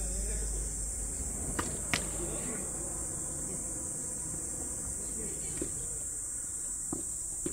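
Insects keep up a steady high-pitched buzz while tennis balls are struck with rackets in a rally: a few sharp pocks, two close together about a second and a half in and more near the end.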